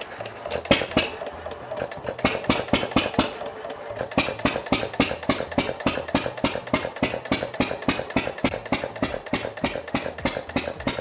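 1928 John Deere Model E 1½ hp hit-and-miss engine running under a rising alternator load. Its firing beats come unevenly at first, then from about four seconds in it fires on every cycle in a steady run of beats, the governor holding it firing because it is being strained.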